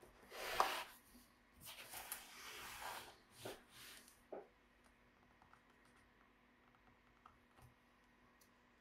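Laptop parts being handled during disassembly: three short bursts of scraping and rubbing in the first four seconds and a sharp click, then a few faint ticks.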